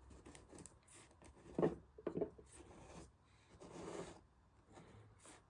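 Faint handling noises: light clicks and rubbing, with a couple of soft knocks about a second and a half and two seconds in, as a glass jar is handled on a worktop.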